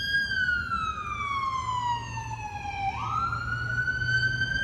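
Emergency vehicle siren going by in wail mode. The pitch falls slowly, sweeps back up quickly about three seconds in and holds high.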